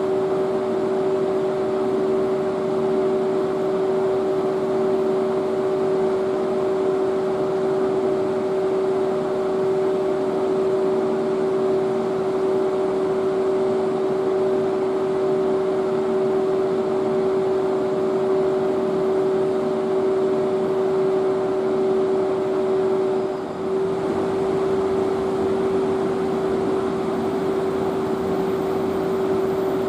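EF81 electric locomotive standing with its auxiliary machinery running: a steady hum with two constant whining tones over a fan-like rush, dipping briefly about two-thirds of the way through.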